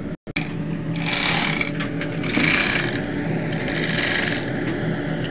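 Manual chain hoist being hauled hand over hand, its hand chain rattling and clicking through the hoist in repeated pulls about every second and a half, lifting an auxiliary engine.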